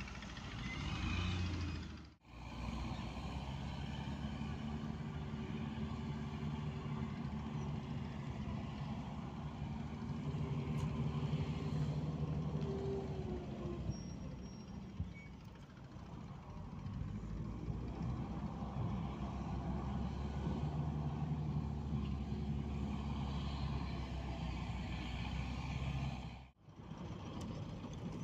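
Engine of a heavy earth-moving machine running, its revs rising and falling. The sound drops out briefly twice.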